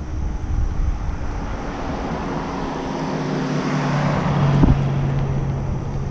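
A car drives past, its engine and tyre noise swelling to a peak about four seconds in and dropping in pitch as it goes by, with a short sharp knock at the moment it passes. Wind noise rumbles on the microphone.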